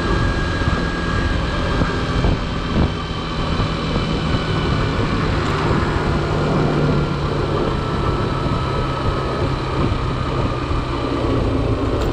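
Motorcycle engine running as the bike is ridden along the road, a steady low note with road and wind noise; its pitch eases slowly down in the second half.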